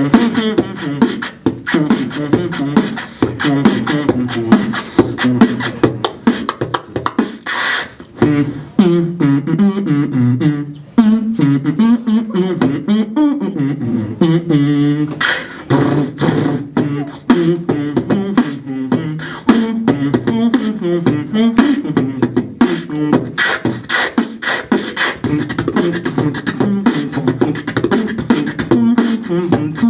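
Beatboxing into a handheld microphone: a fast run of vocal kick, snare and hi-hat sounds, with a hummed melody line woven between the drum sounds.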